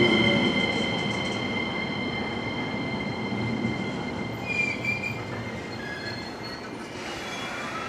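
E231-1000 series electric commuter train rolling slowly as it brakes to a stop, with a high steady squeal over the running noise; both fade as the train slows.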